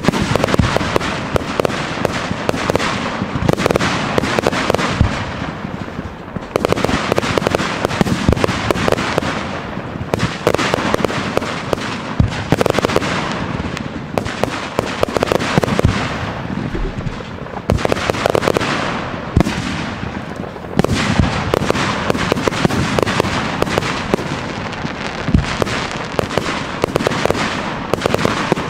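Aerial fireworks display: a dense, continuous crackling of many shells and effects, punctuated by frequent sharp bangs. It swells and eases off briefly every few seconds.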